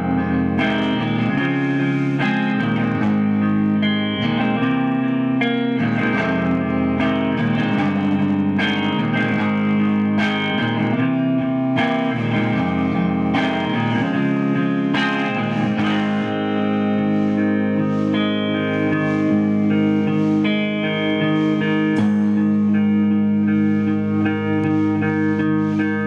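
Live band music led by a Gibson electric guitar played through effects, with notes changing every second or so; after about sixteen seconds it settles into sustained, ringing chords.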